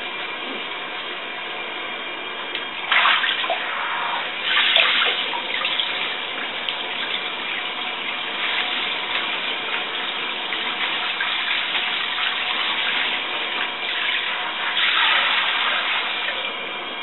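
Water running from a handheld shower sprayer and splashing over a dog standing in a filled bathtub, a steady hiss with louder splashing surges about three seconds in, again near five seconds, and near the end.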